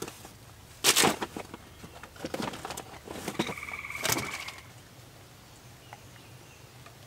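Plastic bubble wrap and bags crinkling and rustling as gear is dug out of a plastic storage bin, loudest about a second in. A bird's buzzy trill sounds for about a second around the middle.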